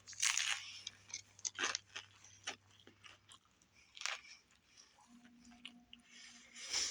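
A person chewing a mouthful of Subway sandwich, in irregular short strokes.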